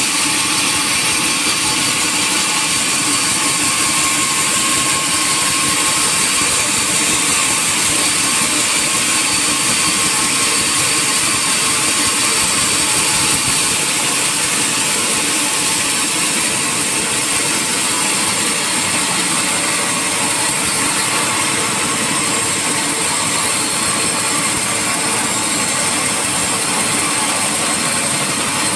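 Sawmill machinery running steadily: a loud, even mechanical noise with a constant high-pitched hiss and no breaks.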